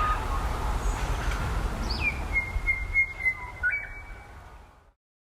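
A bird whistling outdoors: one long note that opens with a quick downward slide and then holds high and steady with slight breaks, over low wind rumble on the microphone. The sound fades out to silence near the end.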